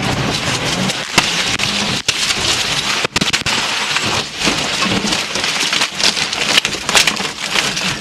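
Rally car crashing off the road, heard from inside the cabin: a loud, continuous rushing clatter as the car ploughs through brush and dirt, broken by several hard bangs of impacts against the bodywork. The engine note dies away within the first second.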